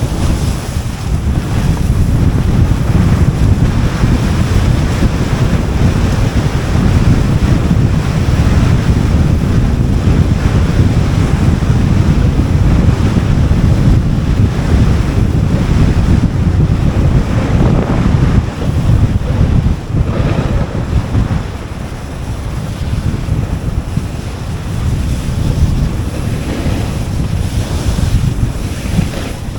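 Wind buffeting the microphone with a steady rush, over a snowboard sliding and scraping on snow during a descent.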